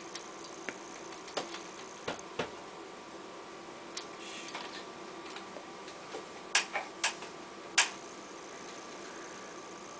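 Scattered light clicks and taps of small objects being handled at a table, with a quick cluster of about four sharper clicks a little past the middle, over a faint steady hum and a thin high whine.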